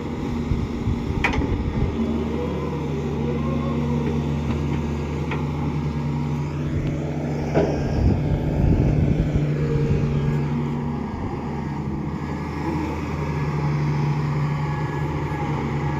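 Excavator's diesel engine running steadily under work, with a few sharp knocks and one louder clank and rumble about seven and a half seconds in.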